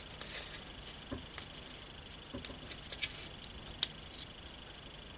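Masking tape being peeled off the roll and wrapped by hand round a nut on a small steel bar: soft crackling and small clicks, with one sharper snap about four seconds in. A faint steady high-pitched whine sits underneath.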